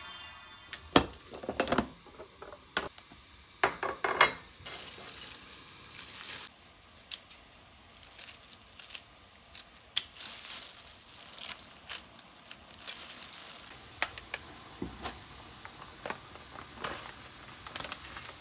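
Kitchen handling sounds: sharp clicks and snaps as a plastic food container's latches and lid are worked, then kitchen scissors snipping mustard-leaf kimchi on a plate, in a run of separate cuts and taps.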